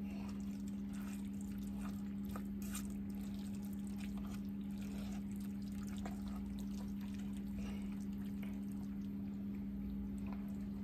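A steady low electrical hum from a running appliance, with faint clicks and scrapes of metal tongs against a pot as pasta is lifted out.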